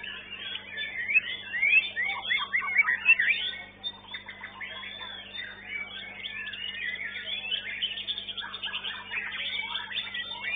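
White-rumped shama (murai batu) singing hard in a contest cage: a fast, varied stream of whistled notes that sweep up and down, loudest in the first few seconds and again near the end, with other caged songbirds singing around it. A steady low hum runs underneath.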